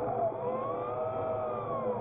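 Underwater ROV thruster motors whining, several tones together that dip, rise to a peak about a second in, then fall again as the thruster speed changes, over a low rumbling hiss.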